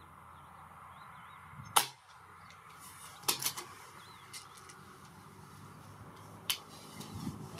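Reximex Throne Gen-2 .177 PCP air rifle firing a single sharp shot about two seconds in. A few quieter clicks follow about a second and a half later, and one more sharp click comes near the end.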